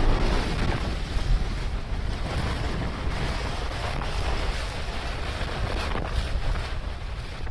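Steady, wind-like rushing rumble with a deep low end, slowly fading: the lingering tail of an explosion sound effect.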